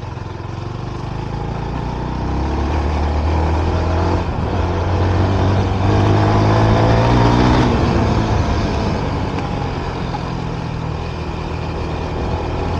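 A motor vehicle's engine running under road and wind noise. It swells from about two seconds in, is loudest a little past the middle, then drops in pitch and eases off.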